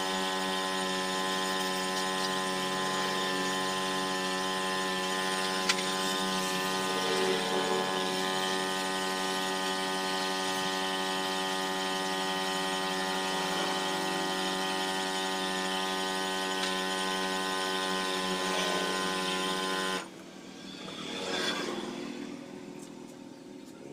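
A steady mechanical drone of many fixed tones, like a motor or engine running without change, cutting off abruptly about 20 seconds in. A quieter stretch follows, with a brief swell of noise.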